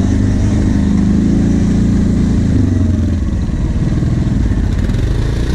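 Kawasaki KVF 750 Brute Force ATV's V-twin engine running while riding at low speed, its pitch rising a little and then easing off about halfway through.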